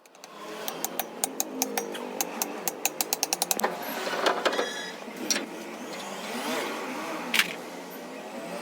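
A run of sharp metallic clicks that come faster and faster for about three seconds, then a few scattered knocks, from tools and parts being worked on a truck wheel hub.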